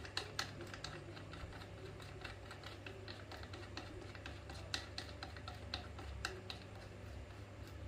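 Light, irregular metallic clicks and ticks, several a second, from a quick-release bicycle pedal's mounting part being handled and fitted into the crank arm by hand.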